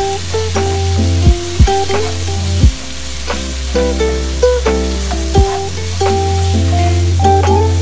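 A plucked-string music track with a bass line and several sharp thumps, over faint sizzling of tomatoes and aromatics being stir-fried in a wok with a slotted spatula.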